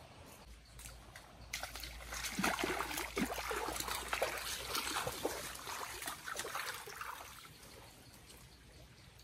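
Water of a shallow stream splashing and sloshing as people wade through it, in irregular bursts over running water. It starts suddenly about a second and a half in and fades away near the end.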